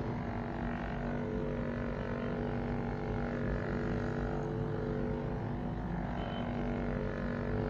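Vibracussor percussive therapy device's electric motor running with a steady hum, its head pressed against the knee.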